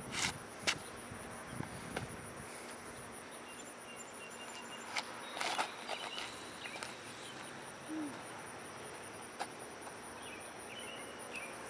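Insects trilling steadily, a high, finely pulsing buzz, with a few scattered clicks and knocks, the loudest near the start and about five seconds in.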